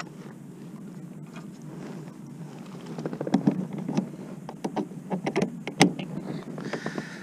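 Low steady background of wind and water against the kayak, then from about three seconds in a run of sharp knocks and clatters as a landing net holding a fish is swung aboard the kayak and handled, the loudest knock near the end.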